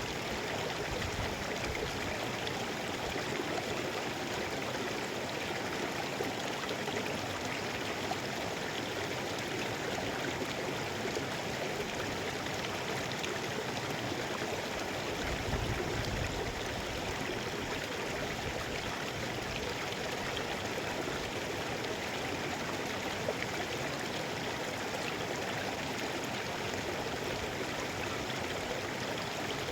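Mountain river flowing steadily, a constant even rush of water with no break.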